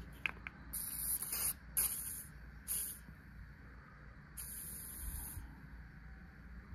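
WD-40 aerosol can spraying in four short hisses, the first and last each about a second long. The penetrating oil is going into a rust-seized idle air control valve to free up its stuck flap.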